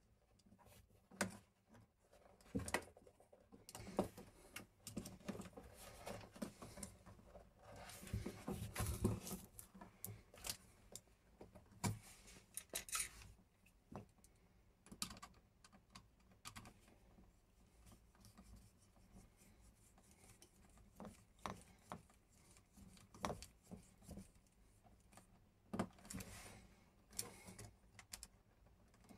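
Faint handling noise from a Schneider wall socket with a metal mounting frame being wired: scattered small clicks, knocks and light scrapes of metal and plastic as the socket and its wires are worked by hand, busiest about a third of the way in.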